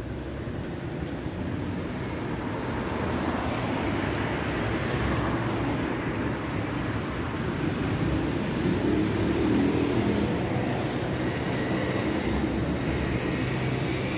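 Street traffic: steady road noise with a low engine hum that slowly builds, loudest about two-thirds of the way through as a vehicle passes close, then eases.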